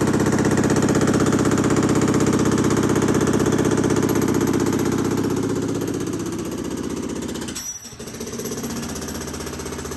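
Jackhammer breaking concrete, hammering rapidly and steadily. It breaks off briefly about eight seconds in, then resumes a little quieter.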